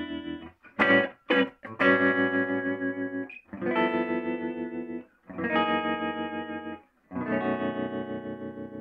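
Electric guitar played through a Univox U-1226 tube amp: strummed chords in short phrases with brief gaps, a few quick choppy stabs about a second in, and a last chord left to ring out and fade. The held chords pulse evenly in volume, the amp's tremolo at work.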